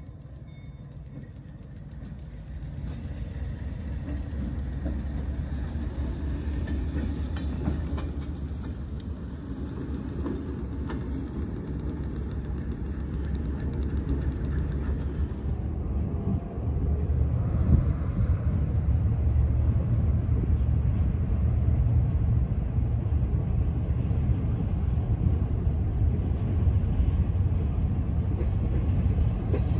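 Diesel locomotive running with a steady low engine drone that grows louder over the first few seconds, then louder again after about halfway.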